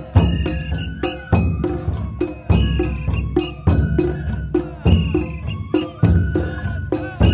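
Japanese festival hayashi music: a large taiko drum struck about every second and a quarter, with quick metallic strokes of a small hand gong between beats and a bamboo flute playing a high melody in held notes.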